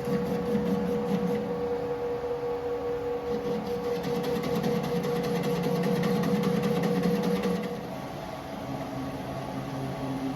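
Metal lathe cutting a long steel bar that overhangs far out of the chuck, with a steady humming chatter from the cut. The chatter is the sign of the cantilevered workpiece vibrating under tool pressure. The hum stops about eight seconds in while the lathe keeps running.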